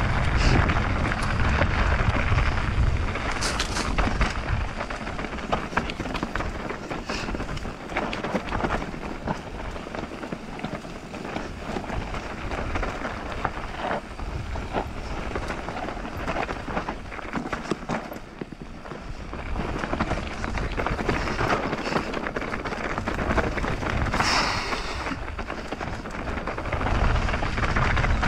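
Mountain bike riding down a loose, dusty dirt trail. Tyres hiss and crunch over the dirt, and the bike gives many short knocks and rattles over bumps. Wind rumbles on the microphone, heaviest at the start and again near the end.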